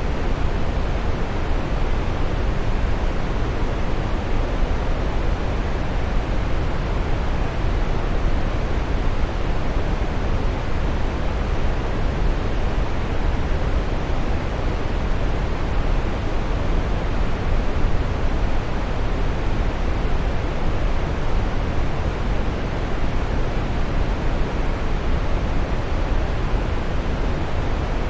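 Waterfall pouring steadily: a dense, unbroken rush of falling water, deepest in the low end.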